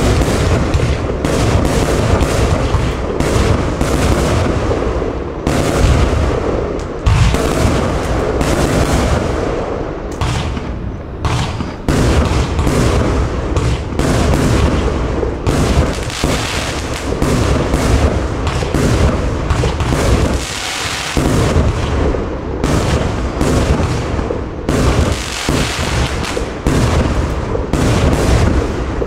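Compound fireworks cake (131 shots, 25/30 mm tubes) firing in rapid succession: launch thumps and booming star bursts follow one another with barely a pause.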